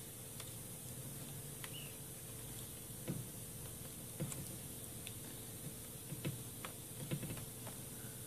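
Faint, scattered small clicks and taps of a small screwdriver and fingertips on the plastic tabs of a laptop keyboard's ribbon-cable connector and on the keyboard, a dozen or so at uneven intervals. Under them is a steady faint hum and hiss.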